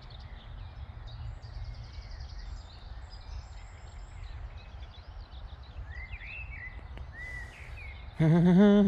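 Outdoor ambience of a steady low wind rumble on the microphone with small birds chirping and whistling. Near the end a man's voice breaks in with a loud, drawn-out, wavering hum.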